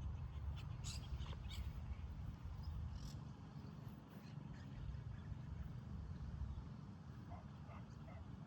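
Outdoor background: a steady low rumble, with several short high chirps in the first few seconds and a few fainter ones near the end.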